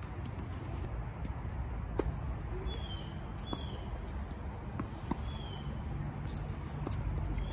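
Tennis ball being hit back and forth in a rally, sharp knocks off the racquets and hard court, the loudest about two seconds in, over a steady low rumble. A few short, falling bird chirps come through in the middle.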